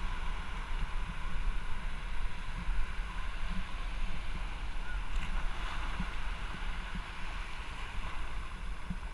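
Wind buffeting the microphone in a steady low rumble, over small waves washing up on a sandy shore.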